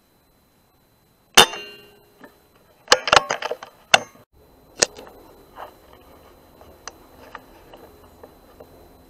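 A single air rifle shot about a second and a half in: a sharp crack with a brief ringing tail. It is followed by a quick flurry of clicks and knocks and a few fainter ticks.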